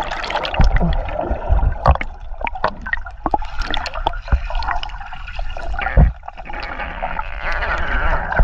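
Underwater sound: air bubbles gurgling and popping from a swimmer's face and body, with water sloshing and scattered knocks, and a louder thump about six seconds in.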